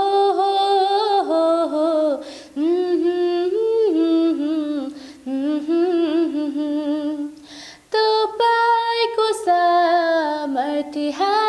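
A woman singing unaccompanied, a wordless melodic passage partly hummed with closed lips. It comes in four phrases with short breath breaks between them.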